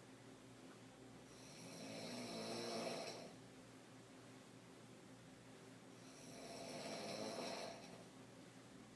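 A woman snoring in deep sleep while lying on her back: two snores about four to five seconds apart, each lasting about two seconds and growing louder before it breaks off.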